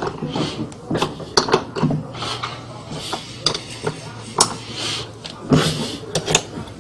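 Irregular clicks, knocks and clinks of hand tools and metal parts being handled during reassembly of a washing machine's wash mechanism.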